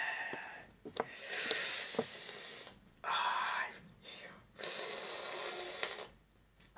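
A man hissing air through his teeth in three long, strained breaths, with a pained 'ai' in the middle, as toothpaste smeared on his face burns his skin.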